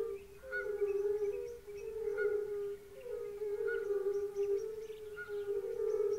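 A chorus of many European fire-bellied toads (Bombina bombina) calling: countless short, soft, pitched notes overlapping in a steady, pulsating mass that swells and ebbs every second or so.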